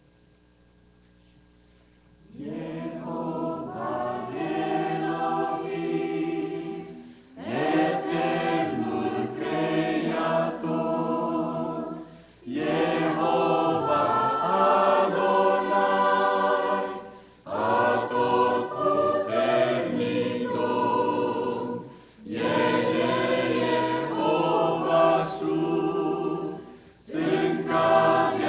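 Mixed choir of men's and women's voices singing in phrases of about five seconds, with short breath pauses between them. The choir comes in about two seconds in, after near quiet.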